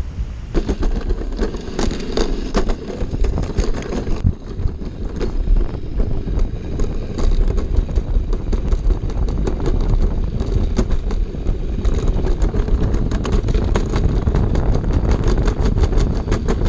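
Summer toboggan sled running fast down a stainless-steel trough: a steady low rumble with continual rapid rattling and clicking.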